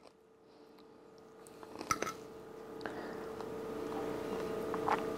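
A few light clicks of a metal fork against a ceramic plate as beef and noodles are scooped up, over a steady low hum that slowly grows louder.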